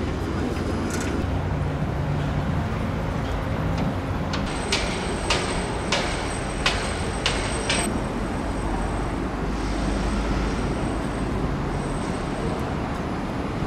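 Steady city street traffic noise. Midway through, a run of six sharp, evenly spaced clicks comes about half a second apart.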